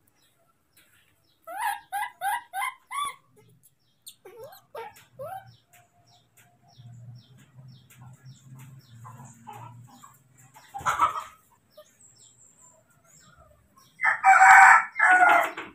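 Infant macaque crying in distress: a quick run of five short rising cries, a few more a couple of seconds later, then two loud, harsh screams near the end.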